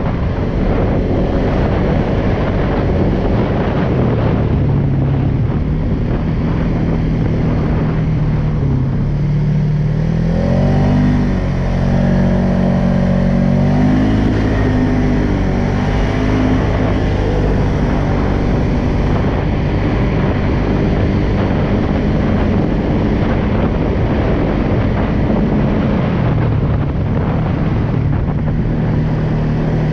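Polaris Sportsman 570 ATV's single-cylinder engine running under way. Its pitch climbs and drops a couple of times around the middle as the throttle is worked, then settles back to a steady drone.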